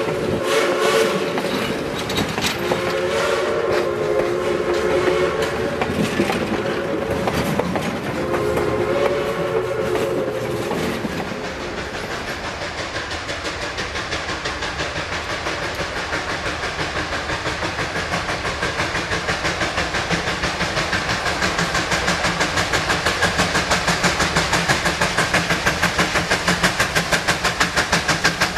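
A train whistle blows a chord in three long blasts over the rumble and clatter of passenger cars rolling close by. Then a steam locomotive approaches under power, its exhaust chuffing in a quick, even beat that grows steadily louder.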